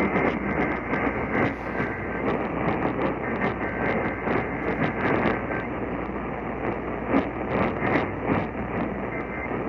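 Static and crackle on a weak, band-limited radio broadcast: a dense hiss full of clicks, with faint steady tones under the noise.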